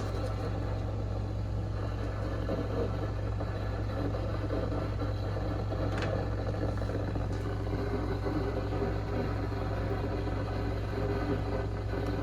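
Steady low electrical hum under a haze of hiss, with no voice or alert tone. There is a click right at the start and a fainter one about six seconds in.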